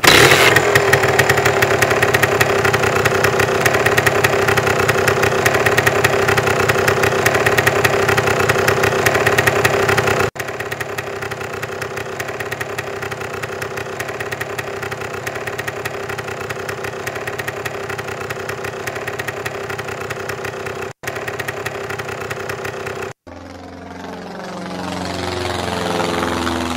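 The 200 cc motorcycle engine of a homebuilt motorized hang glider running loud and steady, then quieter after an edit about ten seconds in. In the last few seconds the engine sound swells and fades, with its pitch sweeping as the craft passes along the runway.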